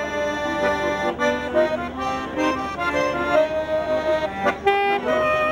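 Piano accordion playing a tune, the notes changing several times a second.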